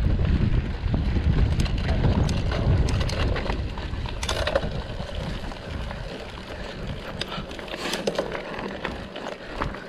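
A bicycle rolling over a dirt trail, with scattered rattles, clicks and knocks from the bike. Wind buffets the microphone heavily for the first few seconds and then eases.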